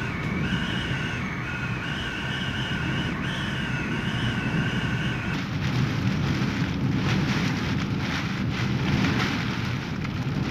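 Hurricane-force wind roaring with driving rain, with a wavering high whistle of wind over it for the first five seconds. The whistle then stops and the roar broadens as storm-surge water churns.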